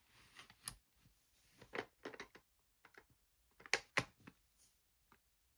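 Scattered small clicks and light handling noises from a Super 8 film camera being handled, with the sharpest clicks a little under a second in and twice around four seconds in.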